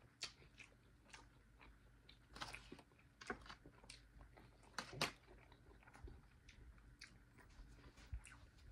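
A person chewing a mouthful of grilled fish and jalapeño at close range: quiet, wet mouth clicks and lip smacks, with a few louder smacks between about two and five seconds in.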